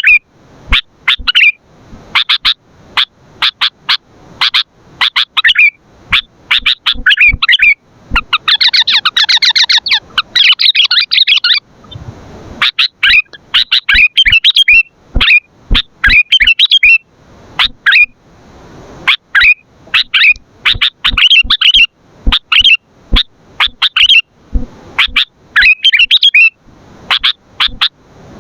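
Sooty-headed bulbul calling loudly: a steady run of short, sharp chirps and brief warbled phrases, with a denser burst of rapid chattering about nine seconds in.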